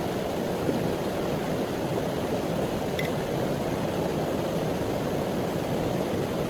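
A steady rushing noise, even and unbroken, with one brief high click about three seconds in.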